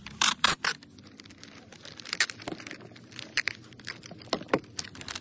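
Clear adhesive tape being pulled off its roll in short rasping strips, several in quick succession at the start and more scattered later. The plastic rice bag crinkles as the tape is pressed over its top.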